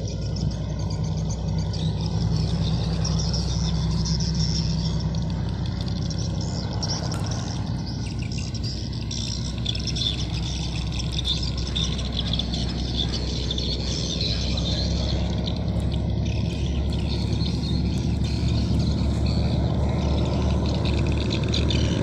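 High-speed passenger ferry under way: a steady low engine drone with an even hiss of rushing water and wind above it, growing slightly louder after about fourteen seconds.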